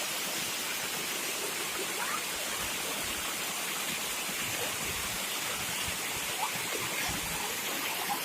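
Waterfall rushing: a steady hiss of falling water with no break.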